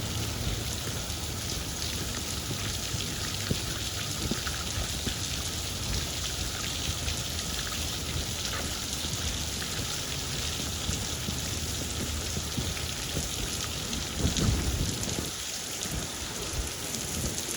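Steady rain falling, with many small drop ticks close to the recorder over a low rumble; a louder low burst comes about fourteen seconds in.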